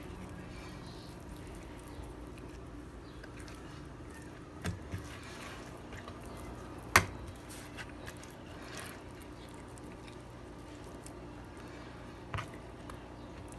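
Hands rubbing a spice coating into raw butterfish on a wooden cutting board: soft wet squishing. There are a few light knocks against the board, and one sharp click about halfway through is the loudest sound. A steady low hum runs underneath.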